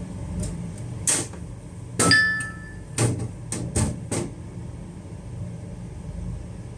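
About six sharp clicks and small metal knocks from a screwdriver working the head assembly of an opened hard drive, one of them ringing briefly like struck metal, over a steady low hum. It is a manual attempt to free heads stuck to the platter and return them to their parked position.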